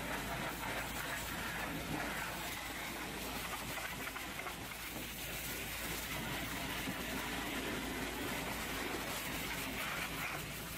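Hot-water pressure washer jet spraying against a truck's steel chassis, battery box and air tanks. A steady hiss of water striking metal, with a low steady hum underneath.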